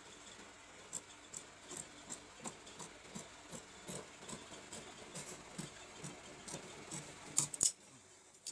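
Large steel tailor's shears snipping through layers of shirt fabric: a steady run of short snips, about two to three a second, with two louder snips near the end before they stop.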